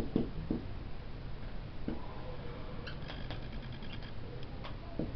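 Marker pen squeaking and scratching on a whiteboard in short strokes as words are written.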